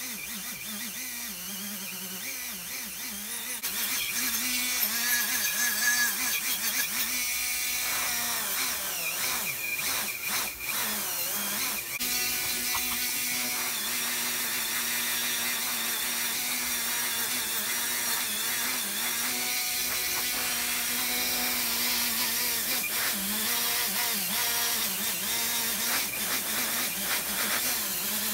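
Handheld rotary tool spinning a small wheel against the cast-iron frog of a Stanley No. 5 hand plane, cleaning the metal. It runs steadily and gets louder about three and a half seconds in as the wheel bears on the part, with a few brief dips near ten seconds.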